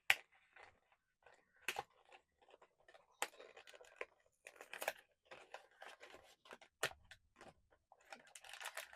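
Blind-box packaging being handled and opened: a few sharp clicks among irregular rustling, crinkling and tearing of the box and wrapper.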